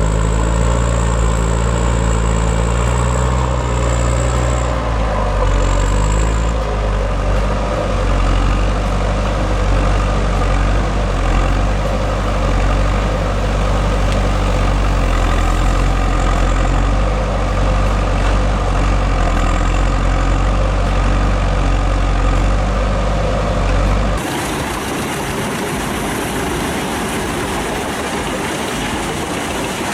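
Heavy diesel log truck engine running steadily with a deep drone. About 24 seconds in it cuts abruptly to a different, noisier machine sound with less bass.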